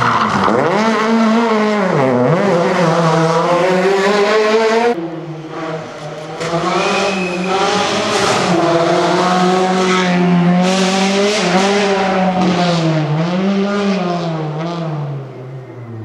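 Two rally car engines, one after the other, revving hard with the pitch climbing and dropping as they accelerate and lift for the corners. The first cuts off abruptly about five seconds in, and the second fades away near the end.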